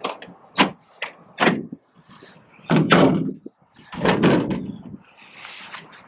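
Sheet-metal side access panel of a York rooftop HVAC unit being worked loose and lifted off: three sharp metal knocks in the first two seconds, then two longer scraping clatters.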